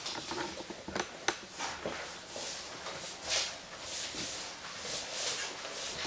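Cloth strip mop swishing back and forth across a wood-effect floor in repeated strokes, with a few sharp clicks about a second in.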